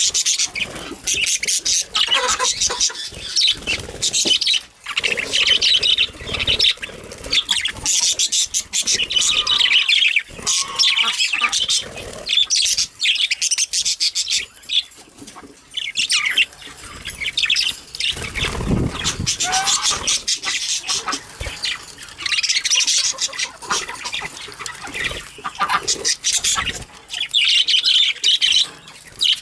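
A group of budgerigars chattering, with fast chirps and warbling that hardly pause.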